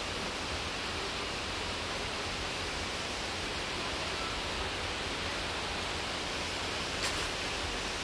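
Steady, even rushing noise with no clear pitch or rhythm, and a short tap about seven seconds in.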